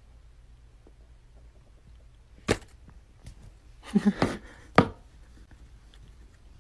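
A few sharp clicks or knocks: one about two and a half seconds in, a short cluster with a brief pitched sound about four seconds in, and the loudest, very short click just after it.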